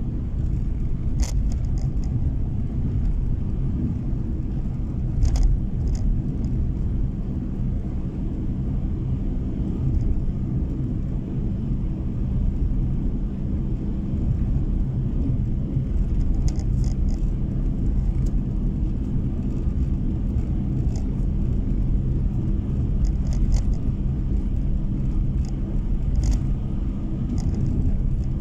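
Car cabin noise while driving on a snow-packed road: a steady low rumble of the engine and tyres. A few faint, short ticks are scattered through it.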